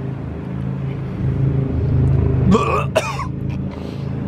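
A steady low engine hum, growing somewhat louder toward the middle. About two and a half seconds in, a man chewing an overfull mouthful of durian gives a short cough-like gag.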